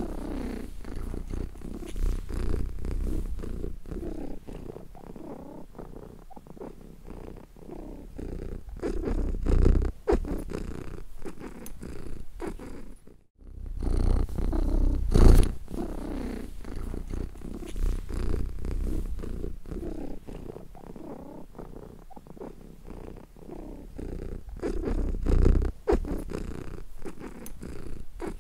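Domestic cat purring, the purr swelling and fading in loudness, with a short break about 13 seconds in.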